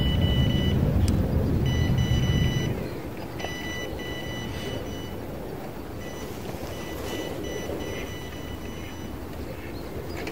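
A low engine hum that drops away about three seconds in, with high, steady electronic beeping tones sounding on and off at irregular lengths.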